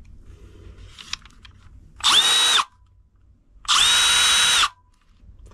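Milwaukee M12 Fuel gen 3 impact driver run with no load in two trigger pulls, the first about half a second and the second about a second long. Each time the motor whine rises quickly to a steady pitch and drops as it spins down. A few light handling clicks come about a second in.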